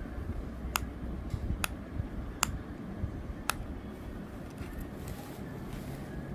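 Four sharp clicks about a second apart in the first half, over low rumbling handling noise.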